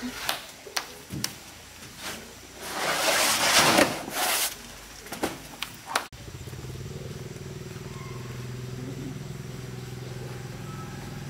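Corrugated cement roofing sheets being handled on a truck's wooden flatbed: scattered knocks, then a loud scraping rush lasting about two seconds as a sheet is slid off. About six seconds in the sound cuts sharply to a steady low motor hum.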